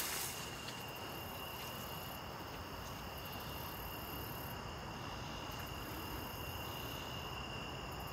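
Chorus of crickets and other night insects: steady high-pitched trilling, with a still higher layer that starts and stops every second or two.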